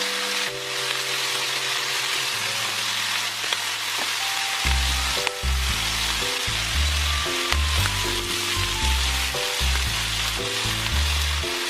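Bacon and enoki mushrooms sizzling steadily as they fry in a pan.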